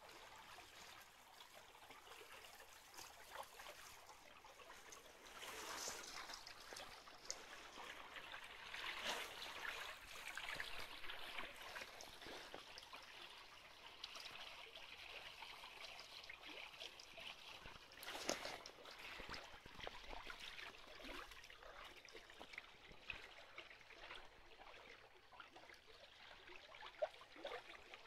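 Faint water trickling and lapping along a sailing trimaran's hull, swelling and easing in irregular surges, with a few brief louder splashes.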